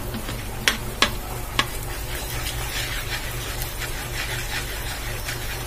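Margarine sizzling as it melts in a wok, stirred with a wooden spatula that clicks against the pan a few times in the first two seconds.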